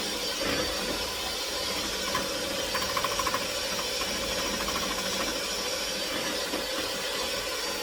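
Steady kitchen hiss with a faint hum while a milk mixture cooks and thickens in a pot on the stove, broken about three seconds in by a quick run of light taps of a utensil against the pot.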